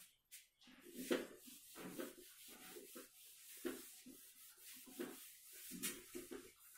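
A whiteboard duster rubbing across the board in a series of short, uneven, faint strokes as the board is wiped clean.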